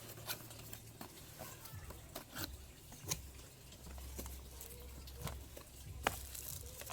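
Scattered light clicks and taps of a humidifier and its packaging being handled, over a low steady hum.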